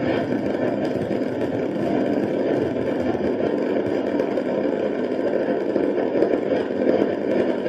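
An engine idling with a steady, unbroken rumble.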